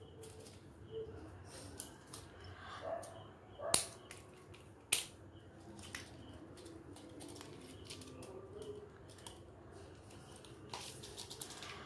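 Handling noise from a plastic reel of thin jewellery wire and a pair of scissors: scattered small clicks and taps, with two sharper clicks about four and five seconds in.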